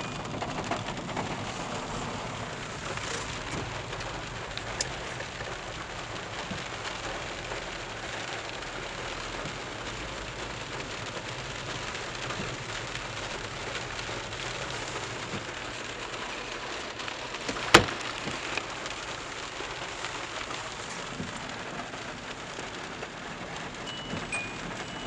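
Heavy rain falling on a car's roof and windows, heard from inside the cabin as a steady hiss. A single sharp knock sounds about eighteen seconds in.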